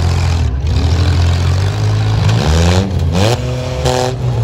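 Demolition derby cars' engines running with a heavy, steady rumble; one engine revs up sharply, its pitch rising, about two and a half to three seconds in.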